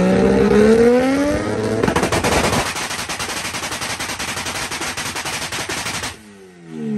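Mazda 20B three-rotor rotary engine in a Suzuki Samurai revving up, then held on a two-step launch limiter: a rapid machine-gun crackle of exhaust pops and bangs for about four seconds. The crackle cuts off suddenly and the revs fall away.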